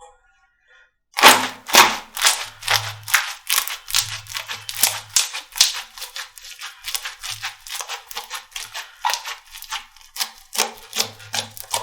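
Slime being squeezed and poked by hand, making quick sticky clicks and pops, several a second, starting about a second in.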